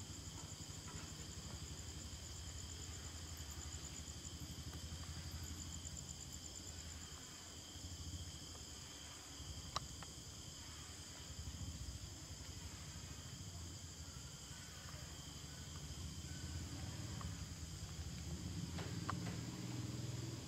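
Night insects, crickets among them, chirping steadily in several high, even tones, over a low hum. A single sharp click sounds about halfway through.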